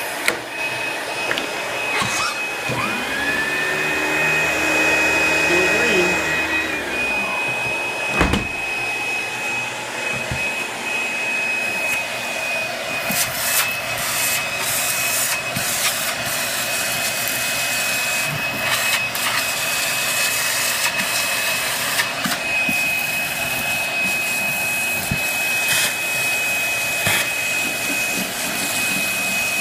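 Shark vacuum cleaner running steadily over carpet with a high motor whine. A second pitched sound rises about three seconds in and falls away about seven seconds in.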